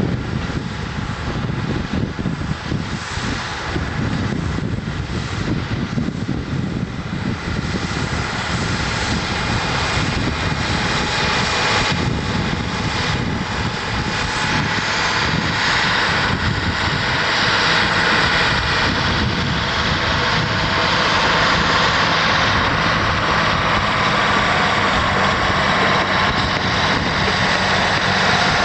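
Crawler bulldozer's diesel engine running under load as it tows a steel container across the sand, growing louder toward the end as it comes closer.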